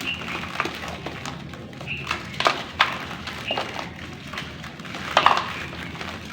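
Chunks of dry, crunchy black clay crackling and crumbling as they break up in water, with scattered small crackles and a few louder crunches, the loudest about five seconds in.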